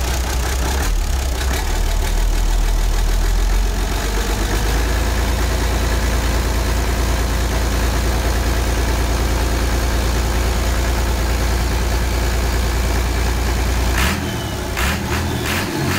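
Perkins T6.354 six-cylinder turbodiesel running steadily on its first test run after a complete overhaul, with no problems found. Near the end the engine note changes and a few sharp clicks are heard.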